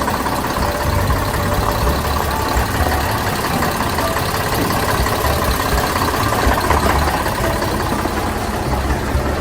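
A small engine running steadily at idle, with a low rumble that holds at an even level throughout.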